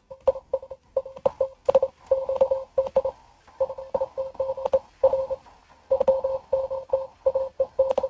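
Morse code (CW) signal on the 20-metre amateur band, received by a SunSDR2 DX software-defined radio and played from a laptop speaker into a microphone. A single mid-pitched tone is keyed on and off in dots and dashes over faint receiver hiss, with sharp clicks.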